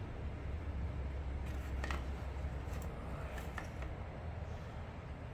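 A few faint clicks from handling the trimmer's fuel line and plastic fuel tank, over a steady low hum.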